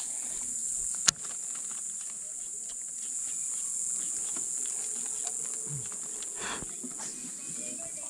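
A steady, high-pitched chorus of insects. A single sharp click comes about a second in, with a few faint ticks later.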